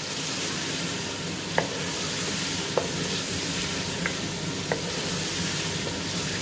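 Onions and tomatoes sizzling in hot oil in an aluminium pot as a wooden spoon stirs them, with four sharp knocks of the spoon against the side of the pot.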